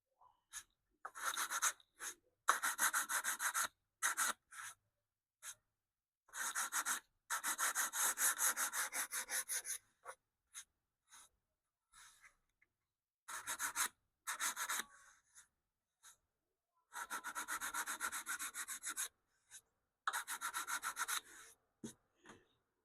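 Hand sanding of a stripped wooden radio cabinet top with sandpaper: bouts of quick back-and-forth strokes of paper on wood veneer, with short pauses between bouts.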